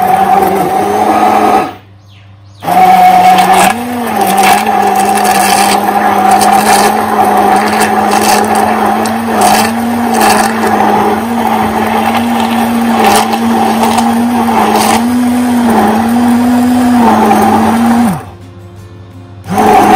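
Hand blender running submerged in a steel pot, blending frozen strawberries, banana, cream and milk into a shake: a steady motor whine that wavers slightly in pitch as the load changes, with scattered clicks. It stops for about a second about two seconds in, and again near the end before starting up once more.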